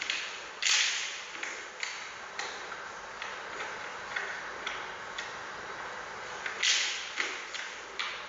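Giant panda cub handling and biting bamboo: dry crackling snaps, two loud ones about a second in and near the end, with lighter clicks between, over a steady hiss.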